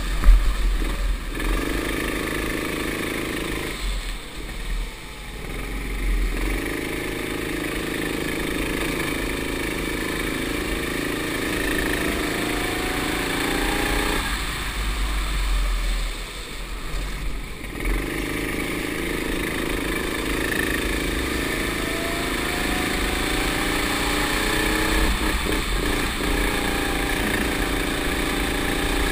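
Go-kart engine heard onboard, running hard and rising in pitch as it accelerates along the straights. It drops off twice, about four seconds in and again around fifteen seconds, as the driver lifts off for corners, then picks up again.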